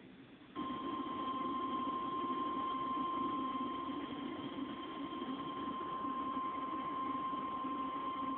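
NOAA Weather Radio warning alarm tone, the single steady 1050 Hz tone that signals a warning message is about to be read. It comes in abruptly about half a second in and holds over a hiss of radio static.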